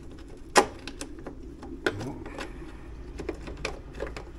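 Irregular clicks and light knocks of a T20 Torx screwdriver screwing a rear-light mounting ring onto a motorhome's rear panel, with one sharp click about half a second in and another a little before two seconds.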